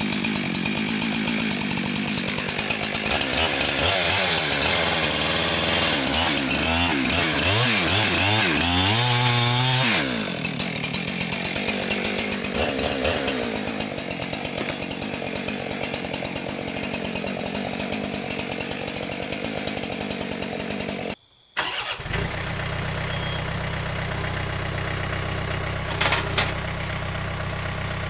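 Husqvarna 372XP chainsaw revved up and down again and again for several seconds, then settling to a lower, steadier running. After a short break a John Deere 4044M tractor's diesel engine idles steadily, with a brief knock near the end.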